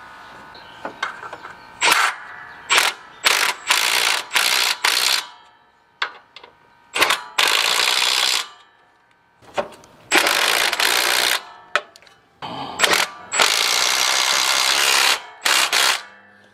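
Ratcheting tool running the engine's mounting bolts in from underneath the riding mower. It goes in repeated bursts: short ones in the first few seconds, longer ones of about a second each later on.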